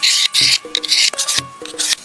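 Rhythmic rasping strokes of a hand tool working wood, about five in two seconds, over background music.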